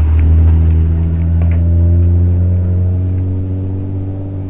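A loud, steady low motor hum with a stack of overtones, its pitch shifting slightly near the end.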